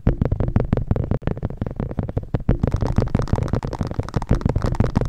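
Close-miked ASMR trigger sounds: a fast, dense run of crackling taps and rubs with deep thumps, cutting out for a split second about a second in.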